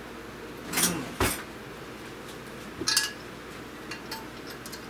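A metal utensil clinking and knocking against glass dishes while food is served out: a sharp knock just over a second in, another clink about three seconds in, and a few light ticks after that.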